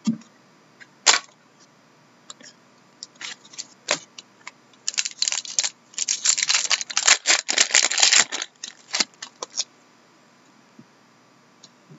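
A trading-card pack wrapper being torn open and crinkled by hand: a few sharp separate clicks, then several seconds of dense crackling in the middle.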